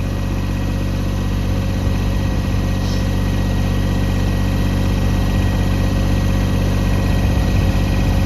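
Kubota BX24 compact tractor's three-cylinder diesel engine running steadily, growing a little louder toward the end.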